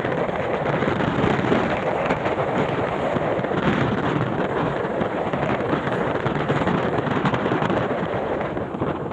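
Steady rushing noise of heavy rain and wind buffeting the microphone, a dense roar with no breaks.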